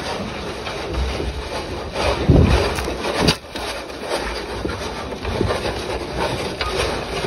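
Cattle eating grain feed right up against the microphone: close munching, snuffling and breath blowing, with a louder puff about two seconds in and a sharp knock a little after three seconds.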